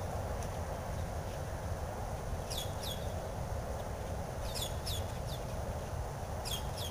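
A bird chirping: short, high calls, each falling in pitch, coming in twos and fours, over a steady background hiss and rumble.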